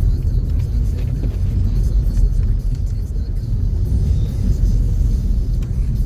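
Steady low rumble of a vehicle driving on a snow-covered road, heard from inside the cabin.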